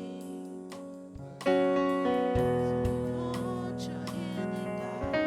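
Church keyboard playing slow, held worship chords, quiet at first, then a louder chord with a bass note coming in about a second and a half in.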